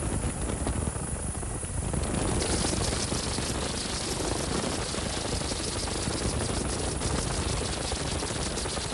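Helicopter in flight: steady rapid rotor chop over a rush of air, growing brighter in the highs about two seconds in.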